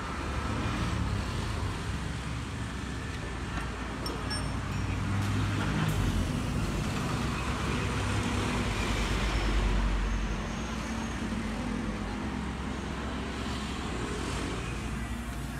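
Road traffic noise with a steady rumble and hiss, swelling to its loudest a little past the middle as a vehicle goes by. There are a few faint clicks.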